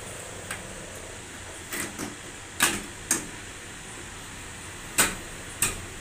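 Short, sharp plastic clicks and knocks, about half a dozen with the loudest about two and a half and five seconds in, as a front-load washing machine's plastic control panel is handled and pushed into place on its press-fit clips.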